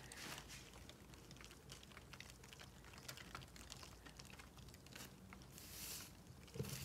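Faint, rapid irregular ticking and pattering while a painting spinner turns a wet acrylic pour canvas. There is a short soft rustle shortly before the end as the spin is stopped by hand.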